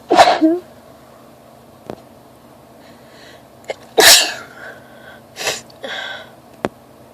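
A woman sneezing twice, about four seconds apart, in an allergy sneezing fit; two shorter, softer sounds follow the second sneeze.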